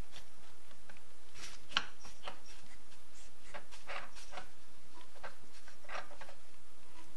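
Light scattered clicks and rubbing as a rope piston stop is worked into the spark plug hole of a Stihl MS 250-series chainsaw cylinder to lock the piston, over a steady low hum.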